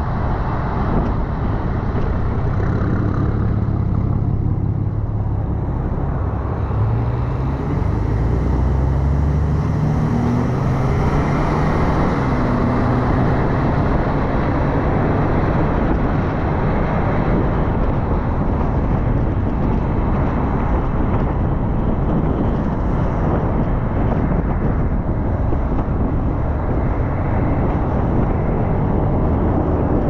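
A car driving at highway speed: steady tyre and road noise under a low engine hum, the engine note climbing over the first ten seconds or so as the car accelerates, then holding steady.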